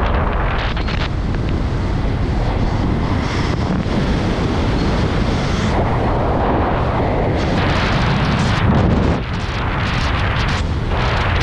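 Wind buffeting the camera microphone during a parachute descent under an open canopy: a loud, gusting rush that swells and fades, dipping briefly near the end.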